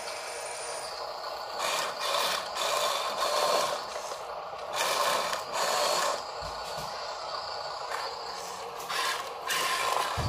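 Huina RC dump truck's small electric motor and plastic gears whirring in several short bursts of half a second to a second over a steady hum, as the tipper bed is lowered.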